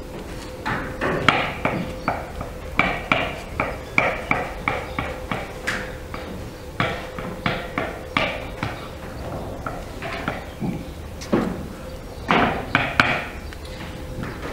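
Irregular knocks and clinks on a wooden tabletop and dishes, a few a second, as boiled eggs are cracked and peeled by hand.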